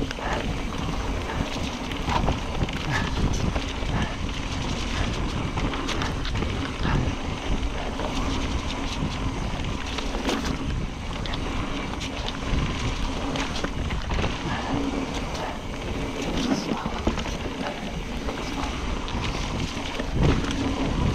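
Trek Fuel EX 9.8 29 mountain bike riding a dirt trail: a steady rush of wind on the microphone and tyre noise, broken by frequent short rattles and knocks from the bike over rough ground.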